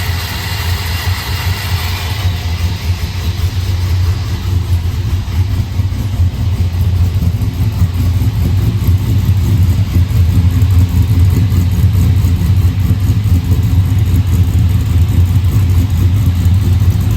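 LS1 V8 idling with a steady, choppy low rumble from its aftermarket cam, still settling after a cold start as the idle air control motor closes up.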